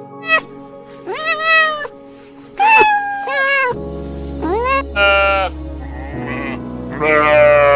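Domestic cat meowing repeatedly: about six separate meows, each under a second and bending in pitch, over background music.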